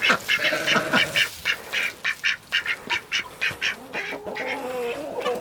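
A flock of farm poultry calling as they crowd in to be fed: a quick run of short, repeated calls, several a second, giving way near the end to lower, drawn-out calls.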